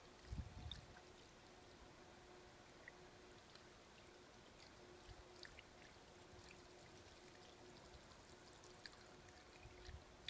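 Faint trickle of water from a garden hose running over the pleats of a reusable K&N air filter and dripping onto concrete, with scattered faint drip ticks. There are a couple of soft low bumps just after the start and again near the end.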